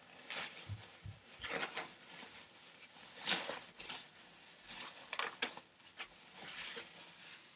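Plastic packaging and folded fabric rustling and crinkling in irregular bursts as a green screen is handled and pulled out of its bag.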